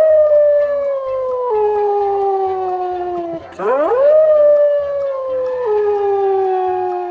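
Wolf howling: two long howls, each rising quickly and then sliding slowly down in pitch, with a small sudden drop partway through. The second howl starts about three and a half seconds in.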